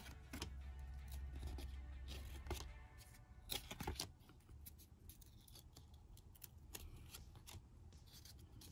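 Paper trading cards being thumbed through one at a time, a faint run of sliding, rubbing and flicking strokes as each card is drawn off the stack, with a louder cluster of flicks about three and a half seconds in.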